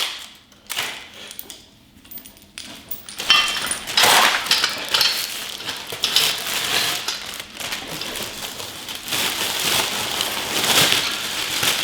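Small metal hardware clinking and a plastic parts bag crinkling as someone rummages through bolts, nuts and washers. A few faint knocks at first, then busy rustling and clinking from about three seconds in.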